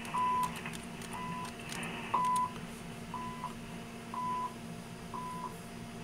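Harris RF-5022 HF receiver playing the CHU time-signal station on 7.850 MHz through a speaker: a short 1 kHz pip once a second, six in all, over a faint steady hum. Keyboard clicks come in the first couple of seconds as a command is typed.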